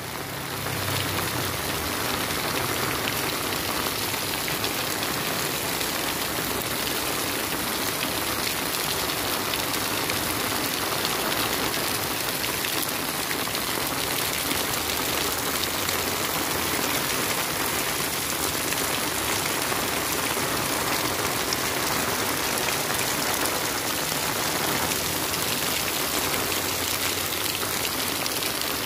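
Heavy rain falling on a paved street and sidewalk, a steady even hiss.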